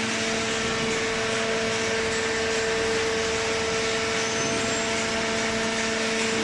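Large hydraulic cardboard baler running, its motor and hydraulic pump giving a steady hum with a constant pitched drone over a noisy rush.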